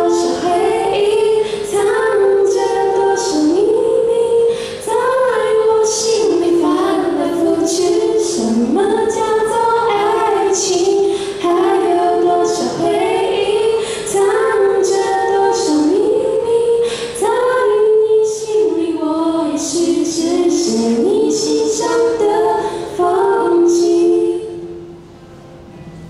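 Teenage girl singing a slow pop ballad into a microphone over strummed acoustic guitar. The voice stops about a second and a half before the end, leaving the guitar playing quietly.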